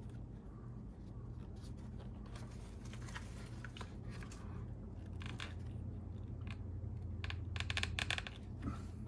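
Small plastic clicks and crackling as an RC truck's receiver antenna wire is worked into its plastic antenna tube, with a dense run of clicks about three-quarters of the way through, over a steady low hum.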